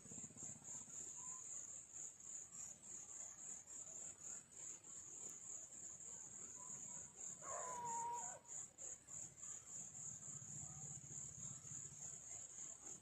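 Insects trilling steadily in a high, fast-pulsing chorus, with one brief call a little past halfway.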